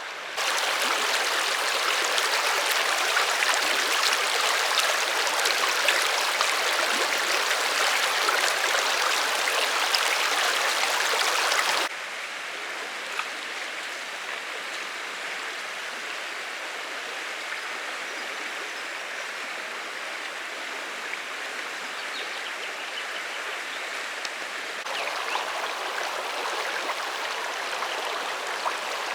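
Steady rushing of flowing river water. It is louder for the first twelve seconds, drops suddenly, then grows a little louder again near the end.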